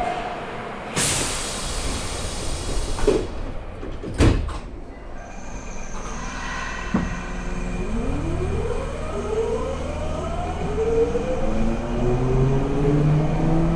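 Nagoya subway 5050 series train pulling away: a burst of air hiss and two knocks as the sliding doors shut, then the Hitachi GTO-VVVF inverter's whine rising in several pitches at once as the train accelerates.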